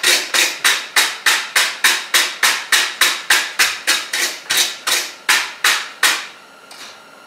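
Steel wire brush scrubbing a hot forged mild-steel leaf against the anvil face to knock off forge scale, in quick scraping strokes at about three a second. The brushing stops about six seconds in.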